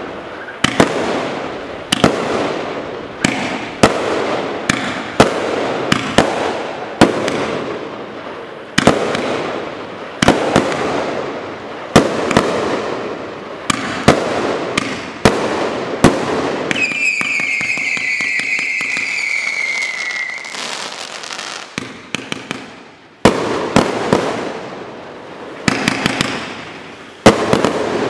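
A 52-shot F3 firework battery firing in quick succession: sharp bangs about one to two a second, each launch and break trailing off. About two-thirds of the way through the shots pause while a whistle sounds for some four seconds, falling slightly in pitch over fine crackling, and then the bangs resume.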